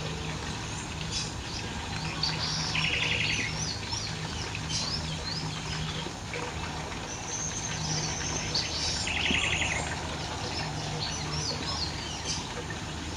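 Several wild birds singing and chirping, with quick sliding notes and a short buzzy trill that comes twice, about six seconds apart. A low hum comes and goes underneath.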